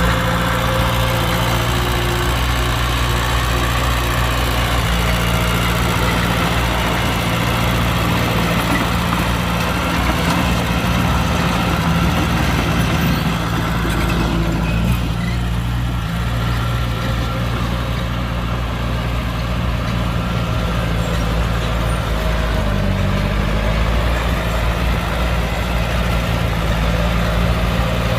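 Heavy diesel engine of earthmoving machinery running steadily at a low, even pitch, with a brief change in engine speed a little past two-thirds of the way through.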